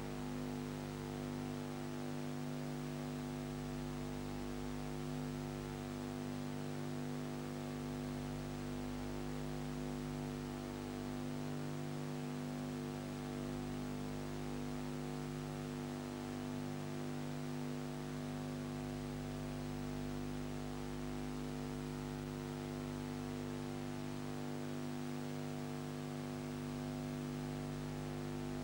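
Steady electrical mains hum with a buzzy stack of tones and a faint hiss, unchanging throughout: the noise floor of a transferred silent cine film, not a sound of the scene shown.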